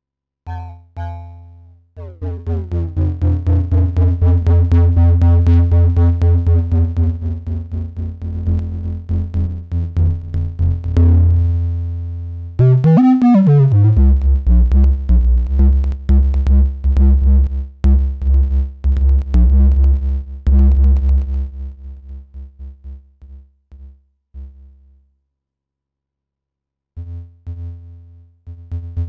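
Analog synthesizer tone shaped by an OTA-based (CA3080) voltage-controlled amplifier module: a low, droning note chopped into fast rhythmic pulses by the envelope and amplitude modulation. Its overtones sweep downward about two seconds in, the pitch swoops around the middle, and the pulses thin out and stop briefly near the end before starting again.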